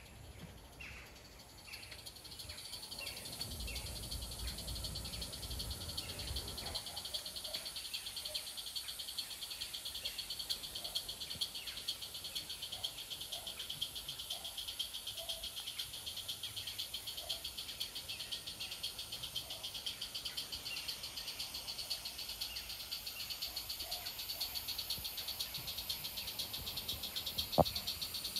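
Small garden-railway live-steam locomotive running with its train of goods wagons: a fast, even chuffing and rattling with a steady hiss that grows louder as it approaches. A single sharp click near the end.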